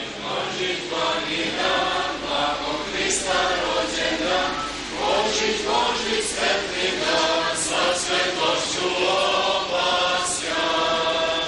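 Choir singing Orthodox church chant: several voices holding sustained chords, with sung words.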